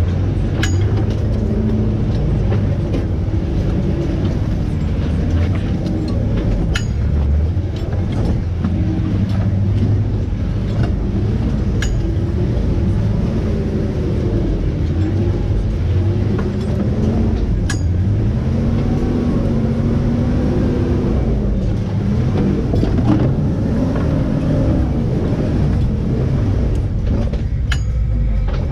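Jeep engine running at low revs while crawling over rocks, its pitch rising and falling as the throttle is worked, with scattered sharp clicks over a heavy rumble.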